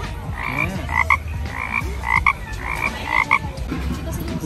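Frogs croaking in a steady, even rhythm, about two short croaks a second.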